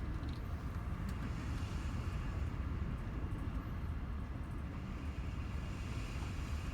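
Strong typhoon wind buffeting the microphone: a steady, gusty low rumble with a fainter hiss of wind above it.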